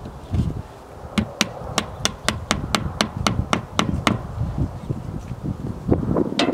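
Hammer tapping a yellow plastic wall anchor flush into a hole in wooden siding. About a dozen quick, light, evenly spaced taps, roughly four a second, then one more blow near the end.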